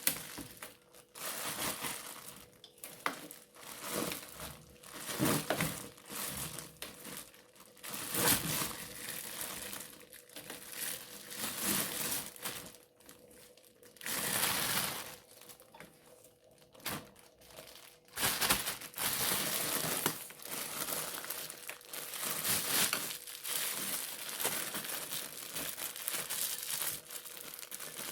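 Crinkly material being handled and crumpled, rustling and crackling in irregular bursts of a second or two each, with a louder, denser stretch in the last third.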